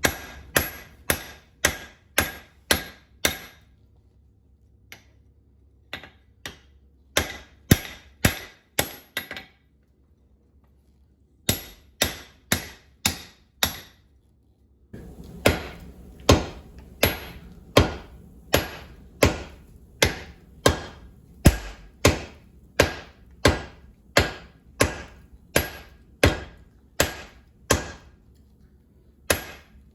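Blacksmith's hammer striking hot steel on an anvil while forging a hammer eye drift. The blows come about two a second, each with a ringing note, in three short runs separated by brief pauses, then in one long steady run through the second half.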